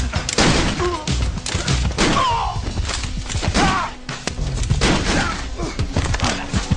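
Film fight soundtrack: a rapid run of punch and body-blow impacts with grunts and shouts, over music.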